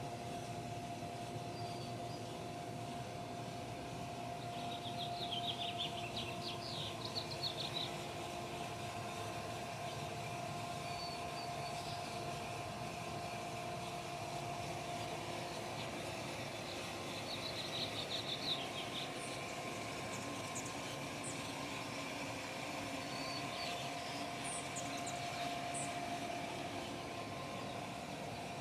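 Birds singing in short, rapid chirping trills, one burst about five seconds in and another past the middle, with a few thin high chirps near the end, over a steady hum.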